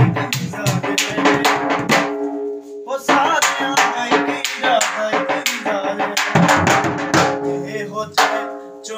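Dhol, the Punjabi double-headed barrel drum, beaten with two sticks in a fast, steady rhythm of about four strokes a second, with short breaks about two seconds in and near the end.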